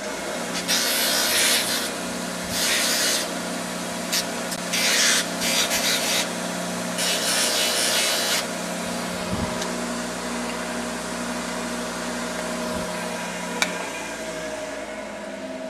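Motor-driven wire brush wheel running with a steady hum. Four times, a ground hacksaw-blade tension tool is pressed against the bristles, giving a spell of hissing scrubbing that dulls its sharp ground edges.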